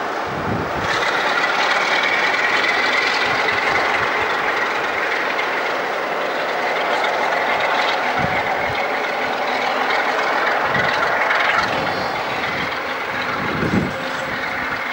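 Class 47 diesel locomotive running slowly past hauling engineering wagons: engine running over the noise of wheels on rail, with a steady high squeal from about a second in until about twelve seconds. A single low thump near the end.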